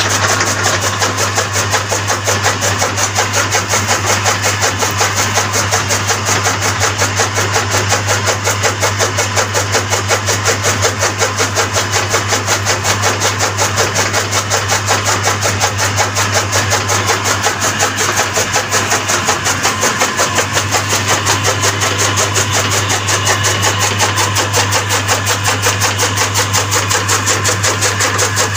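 Motor-driven chaff cutter running steadily with a strong hum while green fodder is fed in and chopped by its flywheel blades in a quick, even rhythm.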